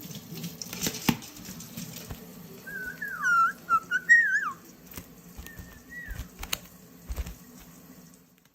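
A pet bird giving a few short, whistle-like calls that slide up and down in pitch, a little past the middle, with a fainter one soon after. Light clicks and rustling of handling come before them.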